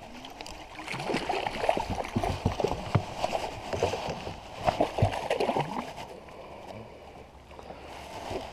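A hooked bass thrashing and splashing at the water's surface beside a small boat: a run of irregular splashes and thumps for about five seconds, dying down to light lapping near the end.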